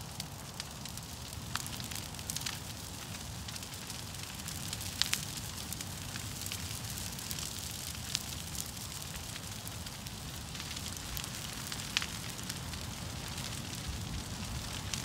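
Large brush pile of broken tree limbs burning: a steady low rumble of flames with a hiss and scattered sharp pops and crackles.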